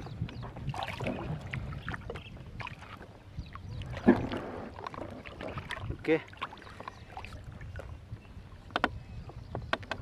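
Water sloshing and splashing close by as a person moves about in it, with scattered small clicks and knocks from handling fishing line; the sharpest knock comes about four seconds in.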